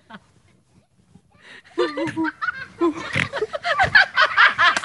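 Laughter breaks out about two seconds in and grows louder, in quick, high-pitched bursts.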